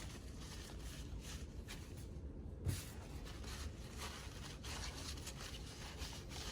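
Faint, irregular rubbing and handling noises from working on a dryer's idler pulley parts by hand, with one soft knock about two and a half seconds in, over a low background hum.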